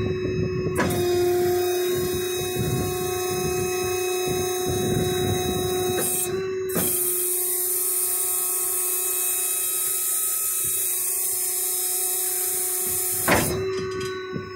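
Hydraulic system of a rollback tow truck's wheel-lift running as the underlift boom extends: a steady whine with a high hiss of oil through the valves. The hiss shifts about halfway through, and the run ends with a sharp clunk near the end.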